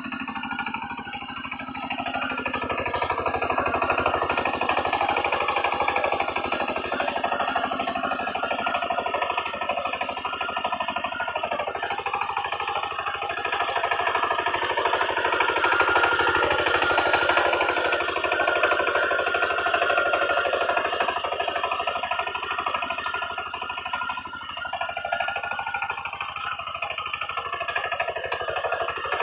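Kamco power tiller's single-cylinder diesel engine running steadily under load while its rotary tiller works through wet paddy mud.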